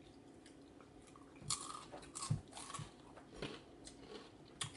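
Someone biting and chewing crunchy food: a raw pepper filled with cream cheese and topped with Takis. A series of short, faint crunches starts about a second and a half in.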